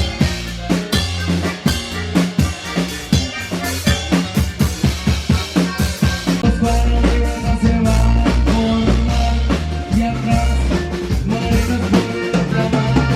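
Band music with a drum kit playing a fast, driving beat over heavy bass; held instrument notes come in about halfway through.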